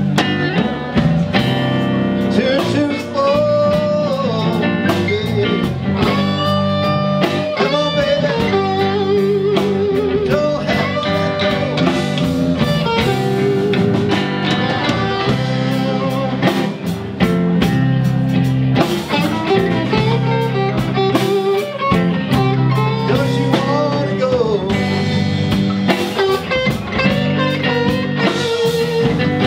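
Live blues band playing, with electric guitars over a drum kit. A lead line runs through it, with wavering held notes.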